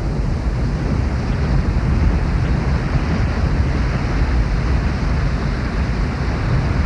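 Waterfall rushing steadily: a loud, even wash of falling water, deepest and strongest at the bottom of the range.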